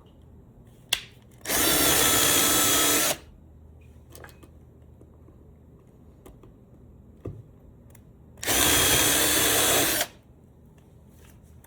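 A power drill running in two bursts of about a second and a half each, drilling holes in the workbench top for threaded inserts, with a steady whine from the motor. A single sharp click comes about a second in.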